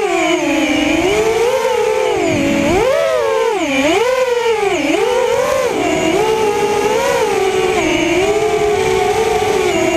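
Drone's motors and propellers buzzing in flight, the pitch dipping and rising several times as the motors change speed. About six seconds in it settles into a near-steady hum.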